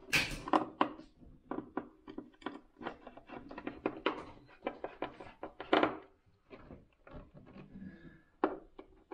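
Irregular small clicks and knocks of a hand screwdriver turning the fixing screws of a plastic light-switch faceplate, the loudest knocks right at the start and about six seconds in.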